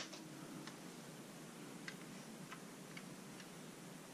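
A few faint, light clicks at uneven intervals, about five in four seconds, from handling a plastic Bug-A-Salt salt gun, over quiet room tone.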